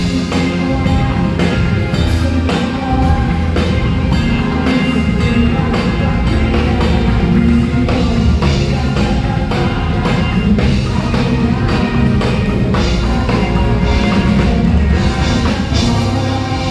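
Live band playing through the PA, with drum kit hits and a heavy bass line, and held notes from other instruments over them.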